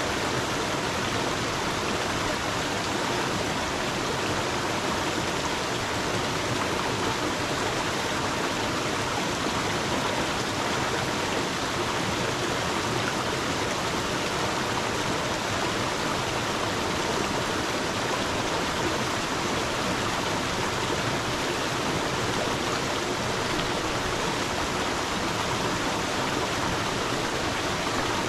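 Water of a stream running and splashing over stones, a steady, even rush.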